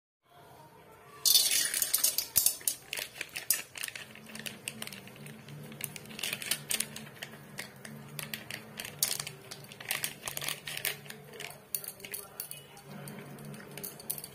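A popcorn packet crinkling and crackling as it is squeezed, with a run of sharp clicks as oil-coated corn kernels are shaken out of it into a metal wok. A faint low hum sits underneath from about four seconds in.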